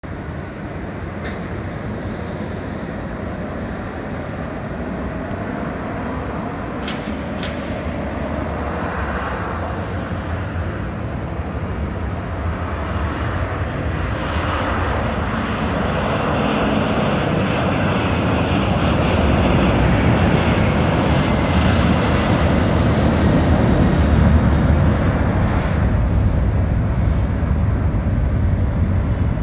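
Boeing 767-300 freighter's twin turbofan engines at takeoff power: a steady broad roar that grows louder as the jet rolls and climbs out, loudest about 24 seconds in.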